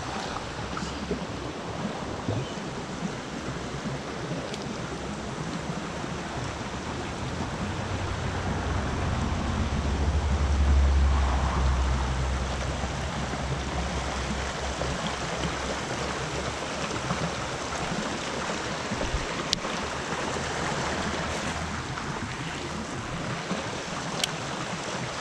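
Shallow creek water rushing steadily over gravel and rocks. A low rumble swells and fades around the middle, and a couple of sharp clicks come near the end.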